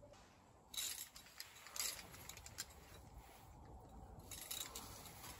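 Metal climbing gear, carabiners and other hardware, clinking and jingling in a few short spells: about a second in, near two seconds, and again a little after four seconds.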